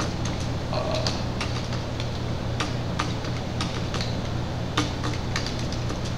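Computer keyboard keys clicking in irregular runs as a command is typed, over a steady low hum.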